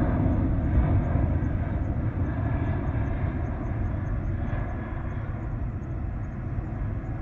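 Boeing 767-281 freighter's twin jet engines rumbling on the climb-out after takeoff, slowly fading as it draws away.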